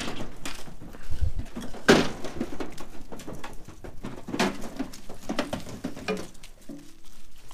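Sheep hooves clattering and knocking on a livestock trailer's metal floor and ramp as ewes walk out, a series of separate knocks with a dull thump a little over a second in.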